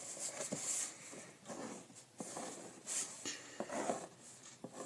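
Pen scratching across a sheet of paper in short, irregular drawing strokes, with a few light ticks.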